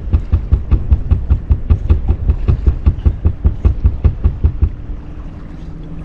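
Fishing reel paying out line as the jig sinks toward the bottom: rapid, even ticking at about six a second that stops shortly before 5 s in, when the jig settles. A low steady hum is left after the ticking stops.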